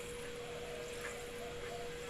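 Effervescent Fluimucil 600 mg tablet fizzing as it dissolves in water: a steady hiss of bubbles, with a steady hum at one pitch underneath.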